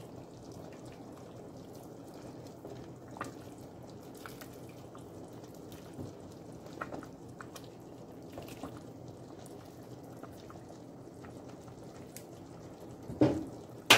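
A ladle stirring a pot of simmering soup: liquid sloshing and dripping, with small clicks, and one louder knock near the end.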